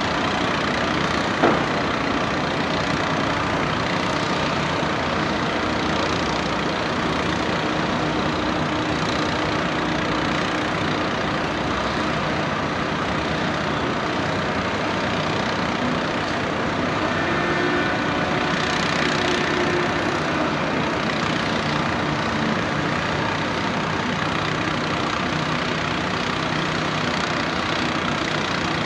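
Diesel engine of an excavator-mounted drill rig running steadily on a pile-hole drilling job. A single sharp knock comes about a second and a half in, and a brief higher whine sits over the engine a little past the halfway point.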